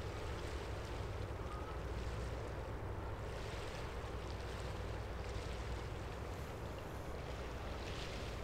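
Steady low rumble and water wash from a passing general cargo ship, with some wind noise on the microphone.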